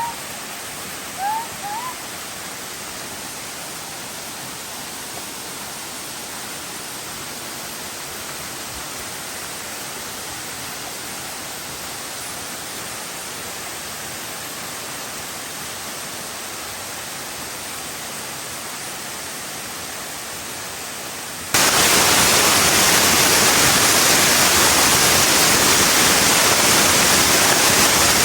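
Rushing water of a river waterfall, a steady, even noise. About 21 seconds in it jumps suddenly to much louder and brighter, as the falls come up close.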